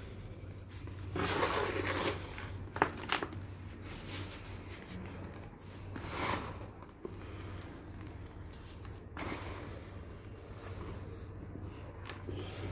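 Hands crumbling and crushing dry sand-and-cement lumps in a plastic tub: gritty crunching and rustling in uneven bursts, with a few sharp cracks about three seconds in. A steady low hum runs underneath.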